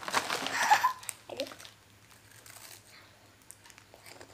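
Crinkling plastic snack packaging as a snack bag and the small wrapped prize from inside it are handled. The crackle is loudest in the first second, then fades to a few faint rustles.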